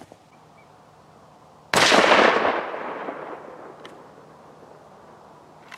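A single hunting rifle shot about two seconds in, sudden and loud, its report trailing off for about a second and a half.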